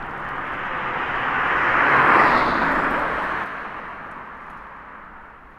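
A road vehicle driving past: tyre and engine noise swells to a peak about two seconds in, then fades as it moves away.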